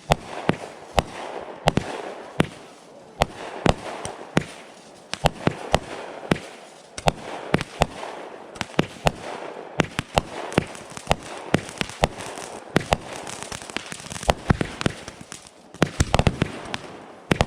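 Fireworks and firecrackers going off: sharp bangs at irregular intervals, one to three a second over a crackling haze, with a dense rapid string of bangs about sixteen seconds in.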